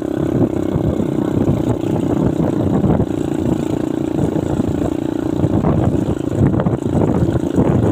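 Motorcycle engine running steadily while riding, with wind and road noise mixed in.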